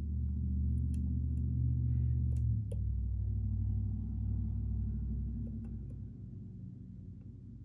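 A steady low hum that shifts lower about two and a half seconds in and fades toward the end, with a few faint small clicks over it.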